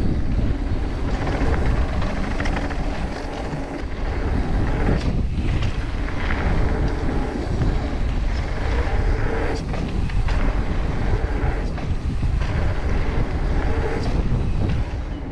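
Radon Swoop enduro mountain bike riding down a hard-packed gravel trail: steady rolling noise of knobby tyres on the dirt, with small knocks and rattles from the bike.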